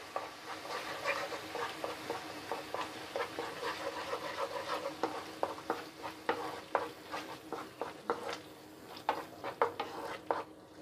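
Wooden spoon stirring and scraping a thick curry masala around a nonstick frying pan, with irregular scrapes and taps over a soft sizzle from the pan as yogurt is quickly mixed into the fried masala on a low flame.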